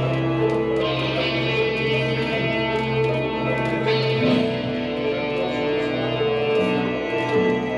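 Guitar music with long held notes that change every second or so.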